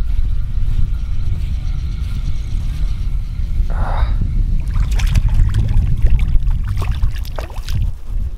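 Wind buffeting the microphone with a heavy low rumble, while a hooked perch is reeled in on a spinning reel; from about five seconds in come sharp splashes as the fish thrashes at the surface and is lifted out of the water.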